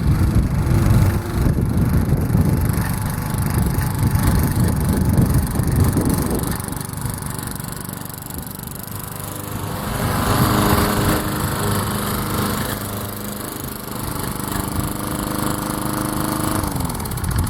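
Walk-behind mulching lawn mower's small gasoline engine running steadily, back in working order after its ignition coil gap was reset. Its pitch drops slightly near the end.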